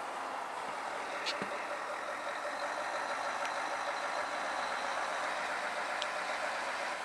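Heavy tractor-trailer trucks hauling oversize wind-turbine tower sections, running steadily at low speed. A faint high whine sounds through the middle, and a few light ticks stand out.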